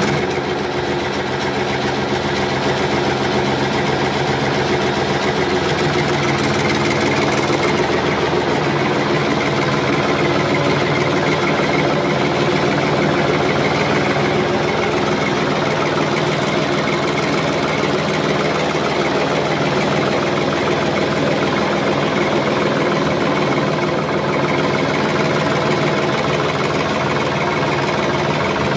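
An engine running steadily at an even speed, without revving.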